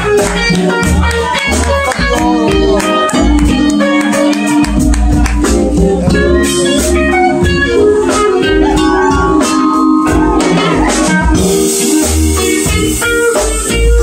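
A small jazz band playing live, with vibraphone, guitar, bass and drum kit.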